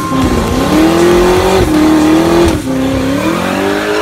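Ford Coyote V8 held at high revs during a burnout, the pitch wavering up and down as the throttle is worked and the tyres spin.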